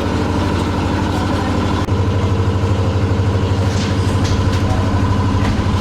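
An engine idling steadily, giving a low, even hum with a regular pulse.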